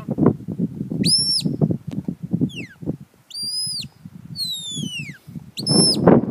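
Shepherd's whistle commands to a working sheepdog: three high held notes that rise, hold and drop, with a long falling glide between each, over low, uneven rumbling.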